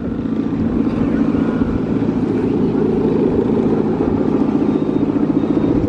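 Guangan, the humming bow strung across the top of a Balinese bebean kite, droning steadily in the wind with a fast, fluttering buzz.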